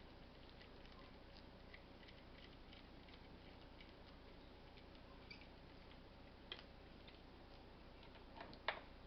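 Faint scattered light clicks and taps of small bicycle parts being handled while a stem is fitted onto the headset, with a sharper click near the end, over a low steady hum.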